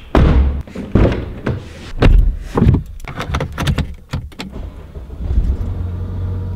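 An Audi's door opening, then a series of knocks and thuds as the driver gets in and the door is shut. A little past five seconds in, the engine starts and settles into a steady low idle.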